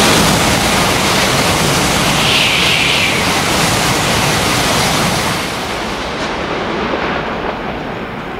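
N700-series Shinkansen passing through a station at high speed, around 300 km/h: a loud, steady rushing of air and wheels on rail as the cars go by, dropping off and fading about six seconds in.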